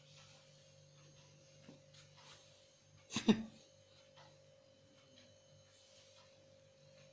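Steady low hum with a faint steady tone over it, a few faint clicks, and one short loud noise about three seconds in that drops in pitch as it fades.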